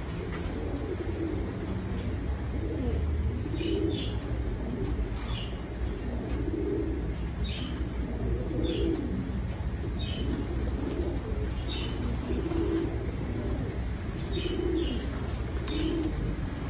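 A loft full of racing pigeons cooing, overlapping soft coos about once a second, with short high chirps mixed in and a low steady hum underneath.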